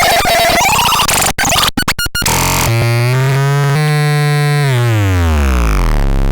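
Magardan Ardnach CN 6010 synthesizer making harsh, chaotic noise with a few brief stutters, then switching about two and a half seconds in to a buzzy tone that holds, steps down, and glides down to a low drone.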